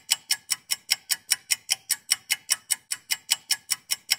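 Ticking-clock sound effect: rapid, even ticks at roughly five a second, a countdown cue for time running out.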